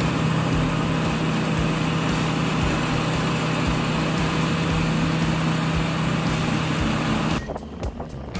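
Tracked mobile wood chipper running under load, a steady engine drone with the noise of logs being chipped in the cutting chamber. About seven seconds in, the sound drops abruptly to a quieter, uneven clattering.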